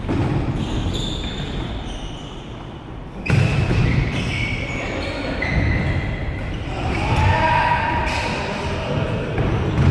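Indoor futsal game: the ball being kicked and thudding on a wooden gym floor amid players' footsteps and occasional shouts, echoing in a large hall. The loudest impact comes suddenly about three seconds in.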